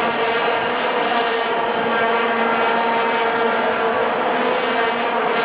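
A steady, fixed-pitch buzzing drone with many overtones, unchanging throughout.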